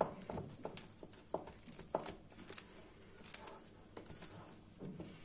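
Spatula stirring a wet bread dough of pre-ferment, flour and water in a ceramic bowl: irregular soft knocks of the spatula against the bowl and dough, several a second.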